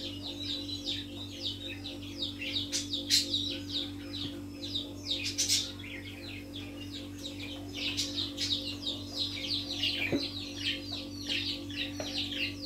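Small birds chirping rapidly and continuously in many short falling chirps, over a steady electrical hum. Two louder sharp sounds stand out about three and five and a half seconds in.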